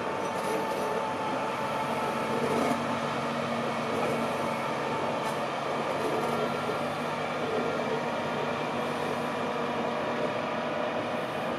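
Train rolling slowly past on the rails: an unpowered Class 803 electric unit being hauled by a Class 66 diesel locomotive. It is a steady rumble of wheels on track with faint steady whining tones.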